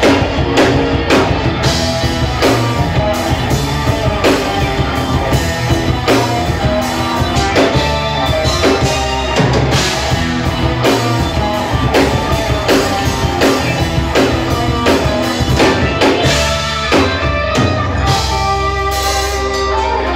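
Live rock band playing instrumental progressive metal: drum kit, electric guitar and keyboards together, with drum hits cutting through. Near the end the playing settles into held notes.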